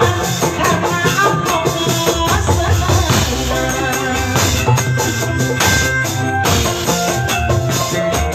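Band music with a drum kit and hand-played tambourine keeping a steady beat under a melody.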